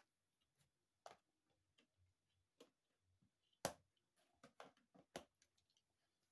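Near silence broken by a few faint, irregular clicks and ticks, the loudest a little past halfway.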